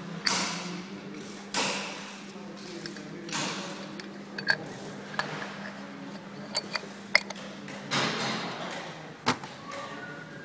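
Metal parts of a CVT drive pulley (variator and sheave) being handled and slid back onto the crankshaft: scattered sharp metallic clicks and knocks with a few short scraping slides.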